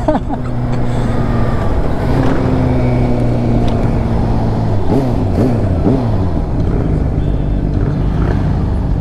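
Sport motorcycle engine running under way, with wind rush over the rider. About halfway through, the engine pitch climbs and drops three times in quick succession.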